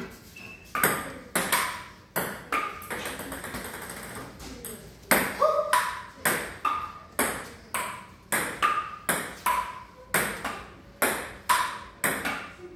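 Table tennis rally: the ping-pong ball clicking back and forth between paddles and table top, about two hits a second, each bounce with a short ringing ping. The rhythm breaks briefly between about two and five seconds in, then picks up again.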